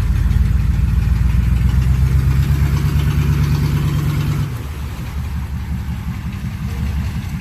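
Off-road 4x4's engine running at steady revs, then easing off about four and a half seconds in and carrying on more quietly.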